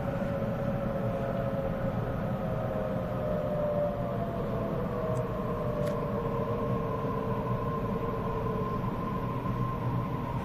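Waratah A-set electric train heard from inside the carriage: a steady running rumble with a faint motor whine whose pitch slides slowly down as the train slows for a station, and a steadier higher whine joining about halfway through.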